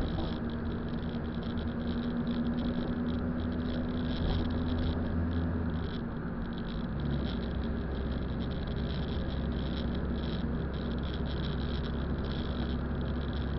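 Car engine and road noise heard from inside the cabin while driving: a steady low drone whose engine note changes about six seconds in.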